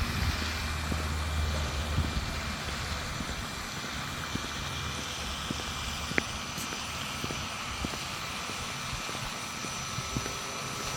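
Steady rushing hiss of water from a small waterfall or creek. A low rumble under it fades out in the first two or three seconds, and there are a few faint clicks.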